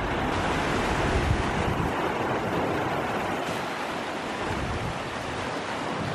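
Sea waves washing and breaking against the boulders of a rock breakwater: a steady rush of surf, with wind rumbling on the microphone.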